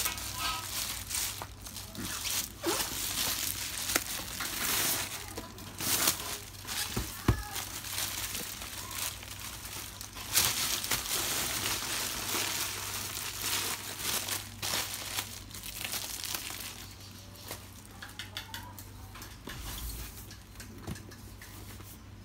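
Black plastic bag and brown packing wrap being crumpled and pulled off cardboard boxes: irregular crinkling and rustling with sharp crackles, easing off in the last few seconds.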